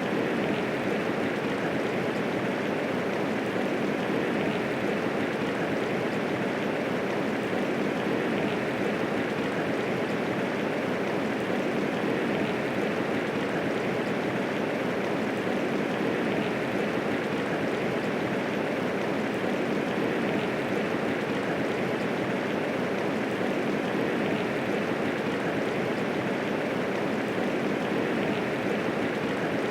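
Steady medium rainfall, a dense even hiss of falling raindrops with no thunder.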